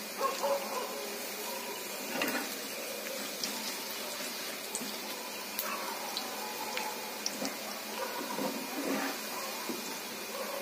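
Besan-and-onion fritters (badi for kadhi) frying in hot oil, a steady sizzle. A few light knocks of a spoon come at intervals as the fritters are turned.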